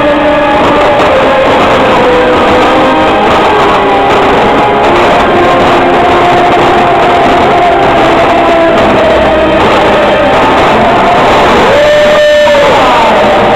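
Loud music with guitar, recorded close to overload, with held and sliding notes.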